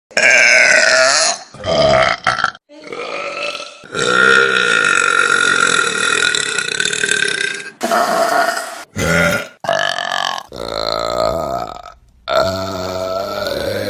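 A run of loud human burps, one after another, about eight in all. One is drawn out for nearly four seconds.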